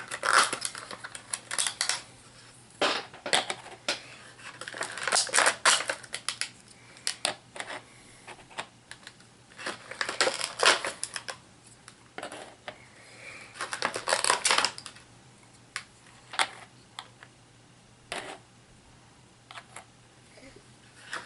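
Plastic HeroClix miniatures and their packaging being handled: bursts of small hard clicks and clatter, a few seconds apart, with single clicks in the quieter stretches.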